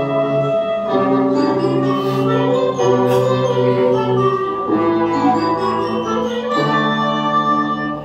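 Instrumental band music with sustained, brass-like chords that change every couple of seconds. A couple of drum strikes stand out about two and three seconds in, from the large marching bass drum (fuzileiro) played with soft padded mallets.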